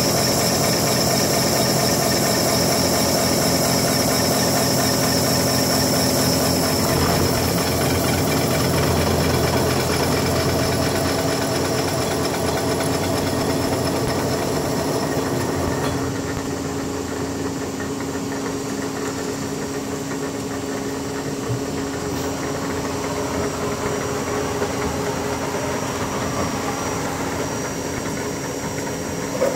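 A 160 mm milling head on a large CNC mill cutting metal, running steadily with several steady tones over the cutting noise. About halfway through it becomes a little quieter and less shrill.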